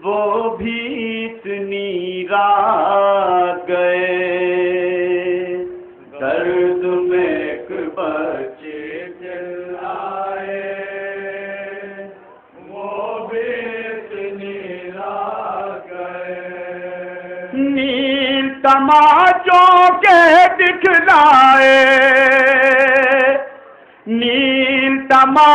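Man chanting a nauha, a Shia mourning lament, into a microphone in long sung phrases with wavering pitch. From about two-thirds of the way in, the chant rises in pitch and grows louder.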